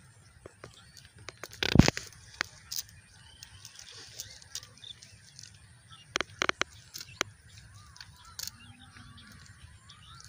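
Rustling and sharp crackles of a nylon cast net being handled by hand on grass. There is a loud crackle about two seconds in and a quick cluster of several around six seconds in.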